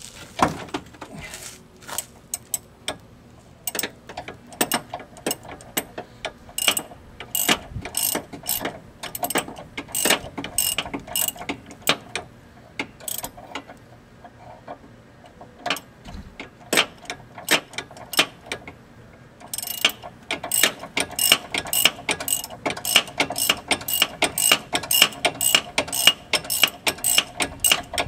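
Hand ratchet clicking as a nut is turned in a car's front wheel well: short runs of clicks at first, then a steady run of about three clicks a second over the last third.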